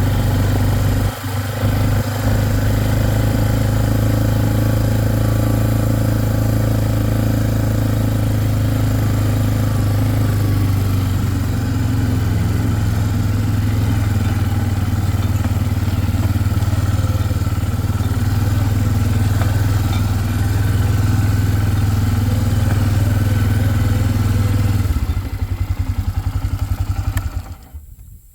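A small vehicle engine running steadily, with a couple of knocks about a second in. Near the end it slows into separate pulses and shuts off.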